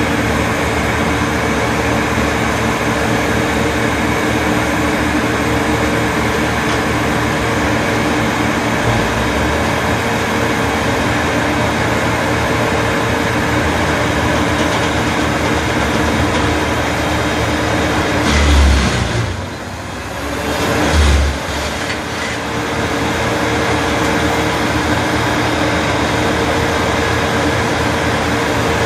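Bandit 2090 drum wood chipper running at full speed, a loud steady engine-and-drum drone, while spruce branches are fed in. About two-thirds of the way through, two heavy low thumps come a couple of seconds apart, with a brief dip in the sound between them, then the steady running resumes.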